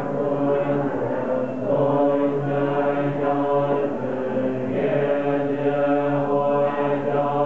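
Tibetan Buddhist monks chanting together in low, steady voices: a sustained group drone of held notes that shift every second or two.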